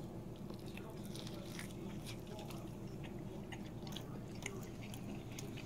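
Faint chewing of a mouthful of smoked beef back rib, with soft wet mouth clicks scattered throughout over a low steady hum.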